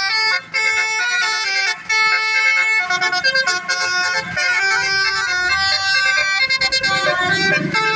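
Basuri telolet multi-tone bus horn playing a tune, its notes stepping quickly from one pitch to the next without a break.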